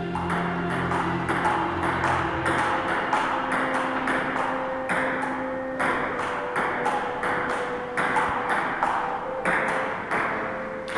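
Table tennis rally: a ping-pong ball clicking off the rackets and the table in a quick, steady rhythm of about three hits a second.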